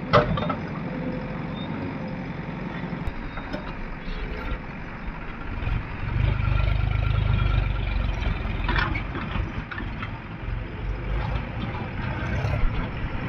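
Diesel engines of a backhoe loader and a tractor running steadily, with a sharp metal knock just after the start. The engine note swells under load for a few seconds about halfway through, with a clank near the end of that stretch.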